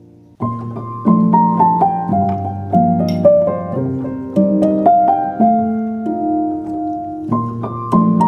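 Background piano music: a melody that steps downward in short phrases over low held notes, coming in about half a second in.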